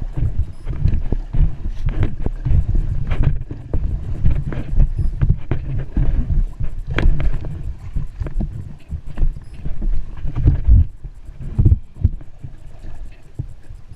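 Wind buffeting the microphone in a heavy, fluctuating low rumble, with scattered short knocks over it.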